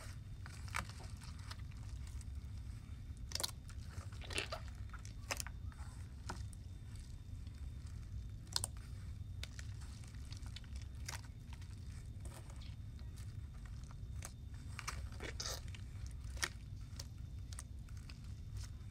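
Crunchy bead-filled slime being kneaded by hand in a bowl of water and shaving cream. It gives scattered sharp crackles and clicks over a steady low hum.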